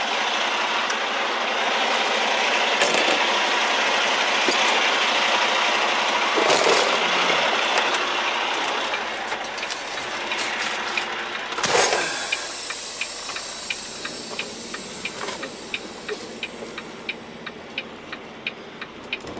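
Semi-truck tractor running with a loud steady hiss that fades after about eight seconds, then a single thump about twelve seconds in. After that it is quieter, with regular ticking about twice a second.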